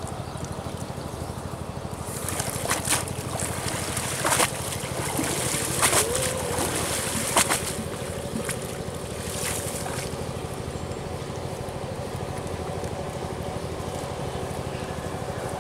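Water splashing and streaming off a cast net as it is hauled out of a shallow pond, with several sharp splashes between about two and eight seconds in. A steady low hum runs underneath.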